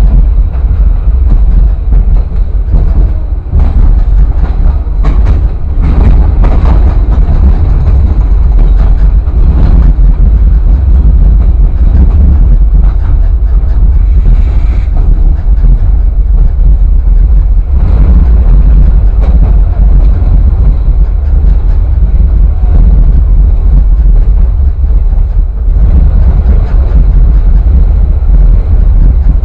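Loud, steady rumble of a train rolling along the track, heard from aboard the moving car, with scattered knocks through it.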